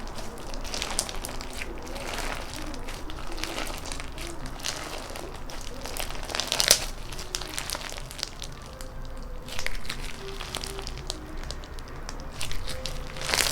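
Crunchy slime being squeezed and pressed by hand, giving dense irregular crackling and popping, with a louder crunch about halfway through.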